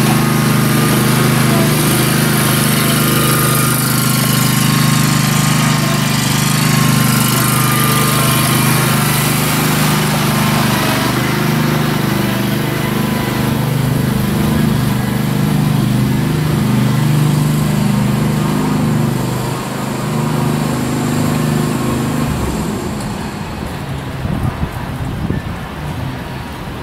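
A commercial walk-behind lawn mower's engine runs steadily as the mower is walked off the trailer. The engine stops about three-quarters of the way through.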